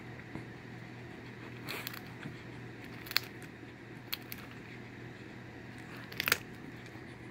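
Jack Russell terrier biting open peanut shells with its teeth: a few scattered sharp cracks and crunches, the loudest a quick cluster near the end.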